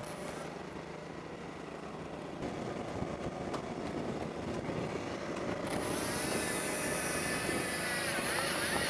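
Steady engine hum of a fishing boat. About halfway through, the motor of a Shimano Beast Master 6000 electric reel starts whirring as it winds in line against a bent rod, and the sound grows slowly louder.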